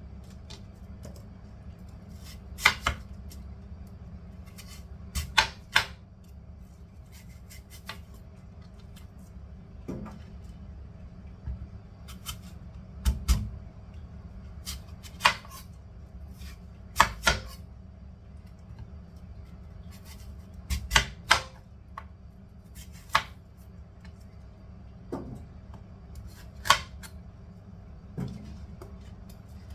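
A knife cutting apples on a chopping board: about fifteen sharp knocks of the blade hitting the board, coming singly or in quick pairs and threes at irregular intervals.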